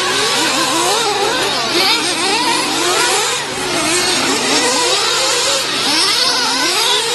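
Several 1/8-scale nitro RC truggies racing, their small glow-fuel engines revving up and down in overlapping, constantly rising and falling pitches as the trucks accelerate and brake round the track.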